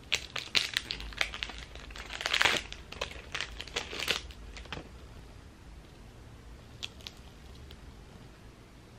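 Crinkling and tearing of a Nivea nose pore-strip packet being opened by hand, a run of sharp crackles that dies away after about five seconds, with a few faint ticks later.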